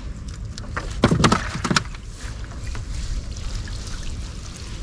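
Water splashing and dripping as a gill net is pulled in by hand, with a cluster of sharper splashes between about one and two seconds in.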